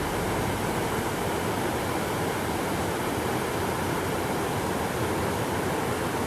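Small waterfalls on a spring-fed river, pouring steadily over rock ledges in a continuous rushing.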